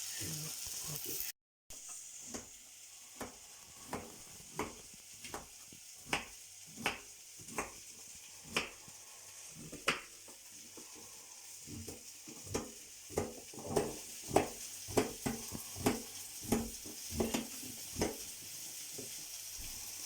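Floured beef pieces sizzling as they brown in oil in a small cast iron casserole pot, with frequent sharp taps of a utensil against the pot as the meat is stirred and turned, more often in the second half.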